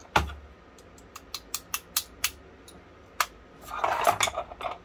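Sharp metal clicks and clinks from handling the antique boot pistol's lock and the small tools around it: one click at the start, a run of about six quick clicks, another single click, then a louder scraping rustle near the end.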